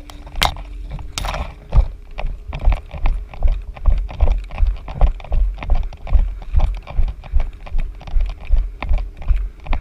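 Running footsteps through tall weeds, heavy thudding strides about three a second, heard from a head-mounted camera. Two sharp snaps come in the first second or so.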